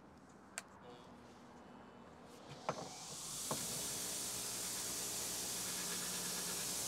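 Bench grinder with a wire wheel switched on: a click about two and a half seconds in, then the motor spins up over about a second into a steady whirring hiss from the spinning wire brush.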